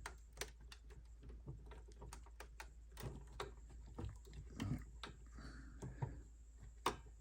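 Small irregular clicks and taps of a screwdriver working at the wheel screw of a die-cast model car, with light handling knocks on the model, one sharper click near the end.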